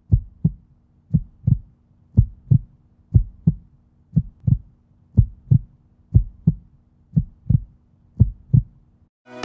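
Heartbeat sound effect: pairs of low thumps, lub-dub, about once a second over a faint steady hum, stopping shortly before the end.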